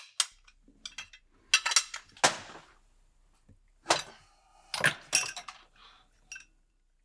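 Small metal parts of a Ford model 94 carburetor clinking and clicking against each other and the workbench as they are handled and fitted during reassembly. Irregular light clinks, some in quick clusters.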